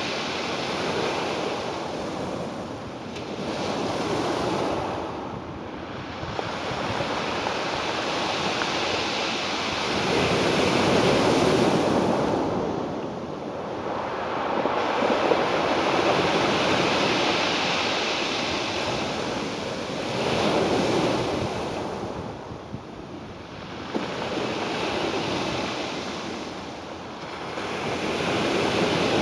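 Ocean waves breaking and washing in, a rushing surf that swells and falls back in repeated surges every several seconds.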